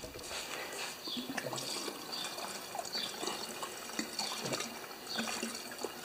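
Gasoline pouring from a plastic fuel jug's spout into a lawn mower's fuel tank: a steady pour with small gurgles.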